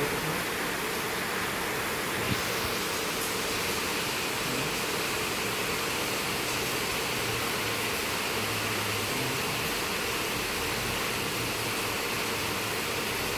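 Steady, even hiss of background noise with no rhythm, and one faint click about two seconds in.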